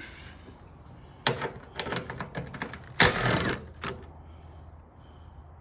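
Tools working on the Camaro's front-end bolts: scattered sharp clicks and metallic knocks, then a louder half-second burst of rapid rattling about three seconds in.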